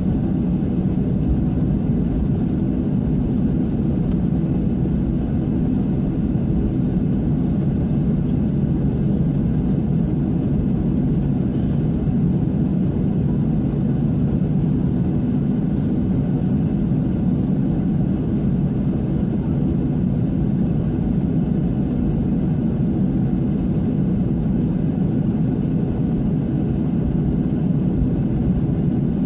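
Steady cabin noise of a Boeing 737-800 taxiing on the ground, its CFM56-7B turbofan engines at idle, heard from a window seat beside the engine. It is an even, low drone with no change in pitch or level.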